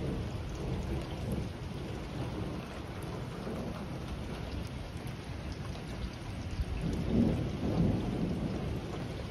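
Thunderstorm: steady rain with a low rumble of thunder that swells about seven seconds in.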